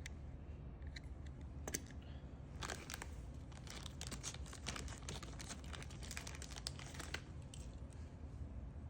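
Faint handling noise: light clicks and crinkling, thickest from about two and a half to seven and a half seconds in, over a low steady hum.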